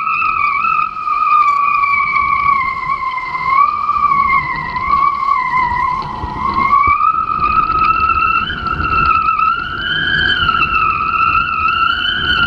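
Kitefoil hydrofoil singing at speed: a high, steady whistling whine whose pitch sags slowly and then climbs again about halfway through as the board's speed changes, over rushing wind and water.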